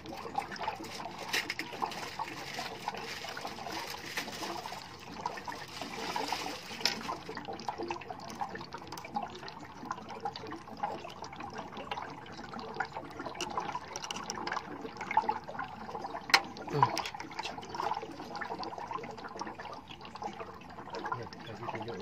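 Water trickling out of an electric water heater's tank through its opened drain, the tank being emptied before its leaking heating element is replaced; the flow hisses more in the first seven seconds or so. A few sharp clicks of a screwdriver on the element's terminal screws sound over it.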